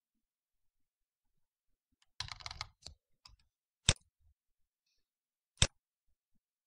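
Computer keyboard typing: a short quick burst of keystrokes about two seconds in, then a few separate clicks, two of them sharp and single, a little under two seconds apart.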